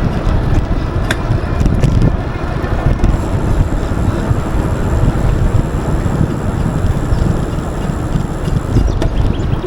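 Wind buffeting the microphone while riding an Aventon Level 2 e-bike, with a few sharp clicks about 1 s, 2 s and 9 s in: the intermittent click that comes through the pedals, which the rider suspects is something in the crank.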